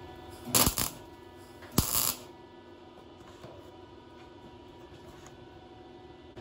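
Wire-feed (MIG) welder tacking a sheet-steel roof panel: two short crackling welds, about half a second in and again near two seconds. A steady hum runs underneath.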